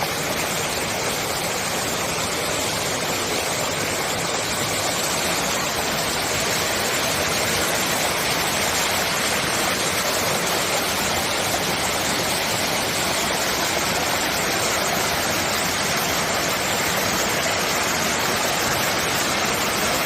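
Mountain valley stream flowing: a steady, even rush of water that grows slightly louder about seven seconds in.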